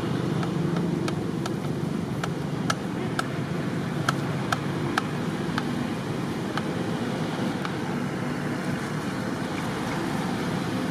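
Steady rumbling background noise with about a dozen sharp, light clicks scattered through the first two-thirds.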